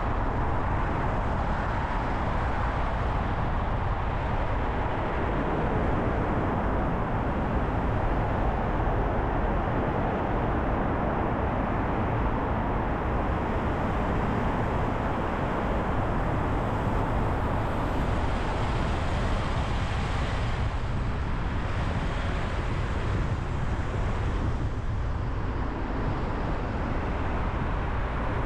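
A car being driven, with a steady low rumble of tyre and engine noise.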